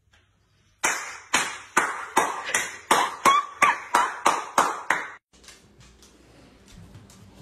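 One person clapping slowly, about a dozen sharp hand claps close to three a second, each ringing out briefly. The clapping stops abruptly about five seconds in.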